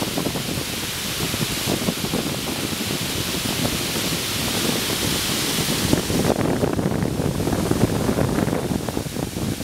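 Water spilling over the rim of a dam's bell-mouth (morning-glory) spillway and dropping down the shaft at low flow: a steady rushing noise with a low rumble, its high hiss thinning about six seconds in.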